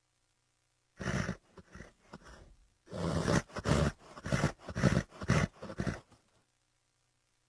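Designed Pachycephalosaurus creature vocalisation sound effect: a short call about a second in, a few fainter sounds, then a run of about six loud pulsing calls, roughly two a second, that stops about six seconds in.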